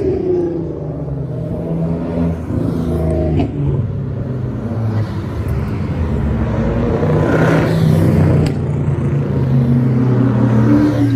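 Cars driving past one after another close by, each engine and exhaust note swelling as it approaches and fading as it goes by.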